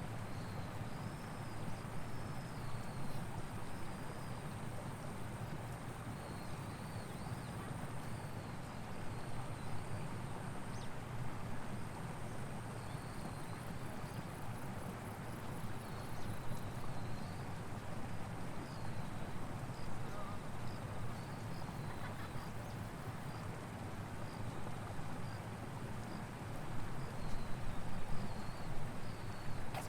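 Countryside ambience: a steady low rumble with insects shrilling, a thin steady high note and, for a few seconds in the middle, a fast trill, and short high chirps scattered throughout. The rumble swells briefly near the end.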